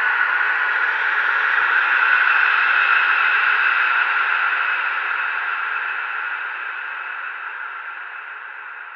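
A steady hiss of noise, with no clear pitch and no separate strikes, as in a static or wind-like sound effect; about halfway through it begins to fade out slowly.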